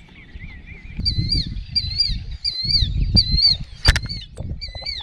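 A bird calling over and over: short, high whistled notes that rise and fall, repeated steadily from about a second in, over a low outdoor rumble, with one sharp click near the end.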